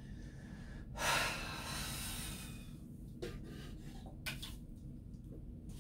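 A long breathy exhale about a second in, fading out, then two light knocks as a red plastic cup goes down into a toilet bowl.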